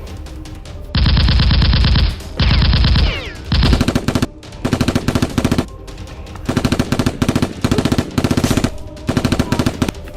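Bursts of rapid automatic gunfire, a dubbed machine-gun sound effect. One long burst starts about a second in, two shorter bursts follow, then five short bursts, over quiet background music.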